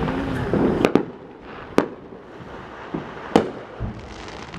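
Fireworks exploding: a quick double crack about a second in, another near two seconds and a loud one past three seconds, with duller low booms in between.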